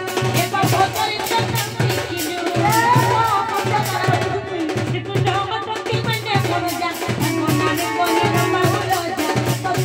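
Live Sambalpuri folk music: a large barrel-shaped dhol struck with a stick in a fast, steady beat, with a woman's voice over a microphone singing along, loudest in the middle.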